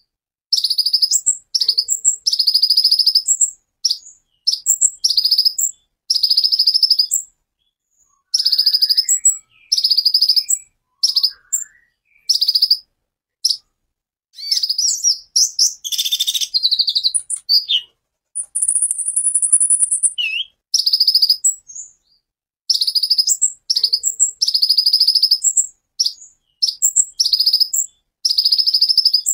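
Caged male sunbird, the 'kolibri ninja' of Indonesian bird-keepers, singing in repeated short bursts of high, rapid notes with brief pauses between them. About two-thirds through comes a sharp, high buzzing trill lasting a second or two.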